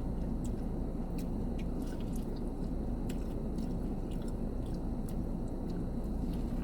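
A person chewing food close to the microphone, with many small wet mouth clicks, over a steady low hum.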